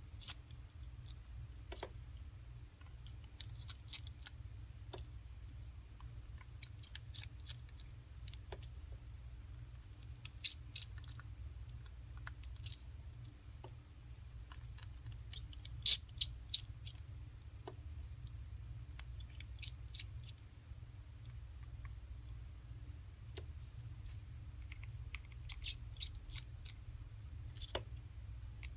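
Small clicks and taps from small repair tools and parts working on an iPhone 5c during disassembly. They come in scattered clusters, the loudest about sixteen seconds in, over a low steady hum.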